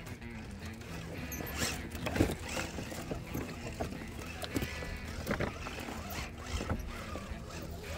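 Small electric motor and geartrain of an RC rock crawler whining as it creeps over rocks, its pitch wavering with the throttle. Scattered knocks and clicks come from the tires and chassis against the stone.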